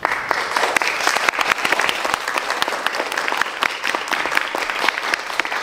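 A theatre audience breaks into applause all at once and keeps clapping steadily, many hands at once.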